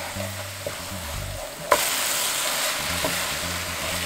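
Spicy boneless chicken feet and noodles sizzling in a pan as they are stir-fried with a wooden spatula, the few spoonfuls of added noodle water cooking off. There is a sharp click a little under two seconds in, and the sizzle is louder from there.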